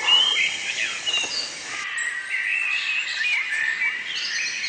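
Several forest birds chirping and whistling at once: a dense, overlapping chorus of short high calls and quick whistled glides.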